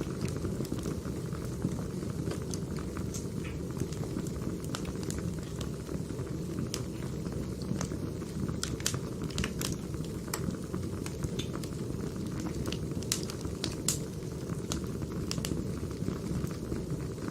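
Wood fire burning: a steady low rumble of flames with scattered sharp crackles and pops from the burning logs, coming thicker in the middle of the stretch.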